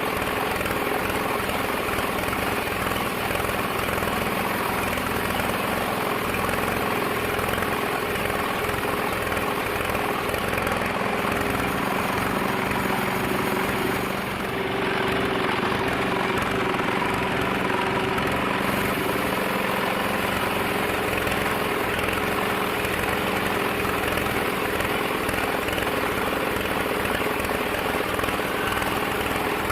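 Large sawmill bandsaw machinery running steadily, a constant mechanical drone with a steady hum, dipping briefly about halfway through.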